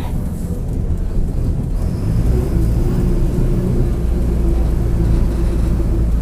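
Mercedes-Benz OF-1722M bus engine running under way, with a steady whine from about two and a half seconds in from the rear differential, which is growling: a sign of a worn differential.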